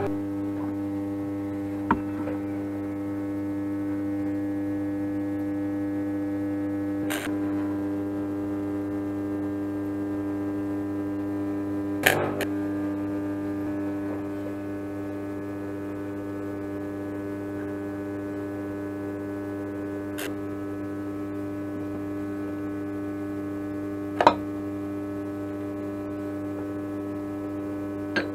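Steady electrical mains hum, a low buzz with a ladder of overtones, from the switched-on welding machine idling after the arc has stopped. Six short sharp clicks and knocks come at intervals, the loudest about halfway through and again near the end.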